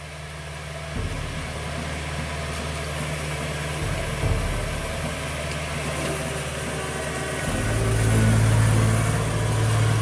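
Kubota DC70 Plus combine harvester's diesel engine running steadily as the crawler machine drives along, growing louder about seven and a half seconds in as it comes closer.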